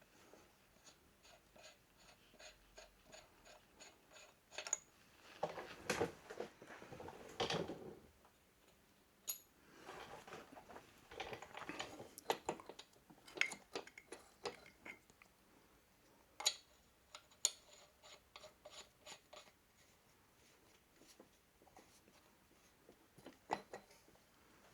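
Small metal parts and hand tools being handled on a motorcycle engine: faint metallic clicks, taps and light scraping, with a run of evenly spaced light clicks, about three a second, in the first few seconds.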